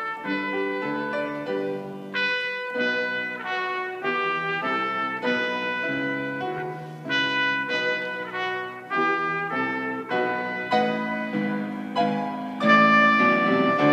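Trumpet playing a hymn melody in a run of held notes, with a piano accompanying underneath.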